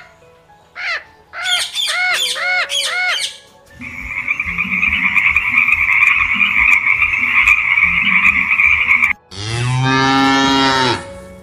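A sequence of animal calls. First come a series of shrill squawks from ring-necked parakeets. Then a frog gives a steady, continuous trilling call for about five seconds, and near the end a Holstein cow gives one long moo.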